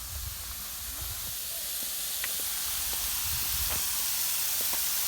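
Irrigation sprinkler heads spraying water: a steady hiss that grows gradually louder, with some low rumbling near the start and in the middle. The zone is overspraying, running too much and sending water onto the cement.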